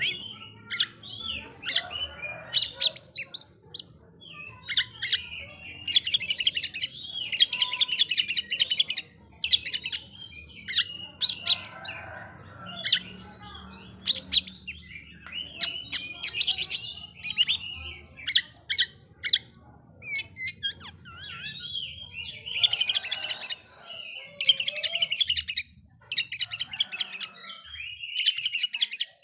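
Oriental magpie-robin (kacer) singing in rapid, chattering high phrases about a second long, repeated with short pauses. This is the provoking song used as a lure to rouse other magpie-robins.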